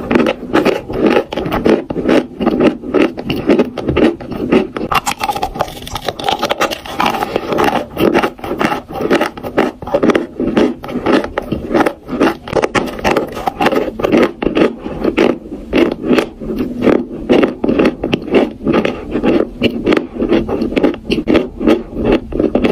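Close-miked crunching of dry chalk being chewed: a dense, unbroken run of gritty crackles and crunches.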